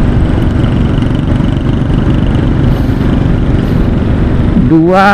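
Steady wind and road noise of a motorcycle ride, with the bike's engine running under it. A man's voice starts near the end.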